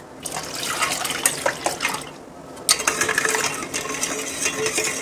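A metal spoon stirring mango juice and ice cubes in a stainless steel bowl: ice clinking against the steel and the liquid swishing, in two bouts with a short pause about two seconds in.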